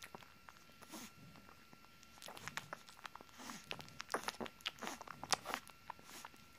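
A 19-day-old pocket pitbull puppy suckling at its mother's teat: rapid wet smacking and clicking sucks. They are sparse at first and come thick and loud from about two seconds in.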